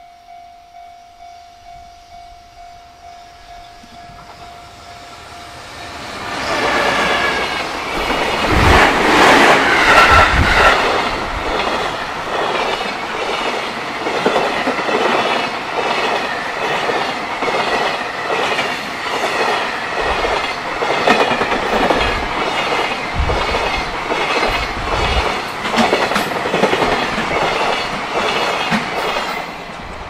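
A Japanese level-crossing warning bell clangs about twice a second. About six seconds in, a JR Freight EF210 electric locomotive and a long train of mostly empty container flatcars pass close by: a loud rush with a steady clickety-clack of wheels over the rail joints, and heavy low gusts of wind from the train for a few seconds as the locomotive goes by.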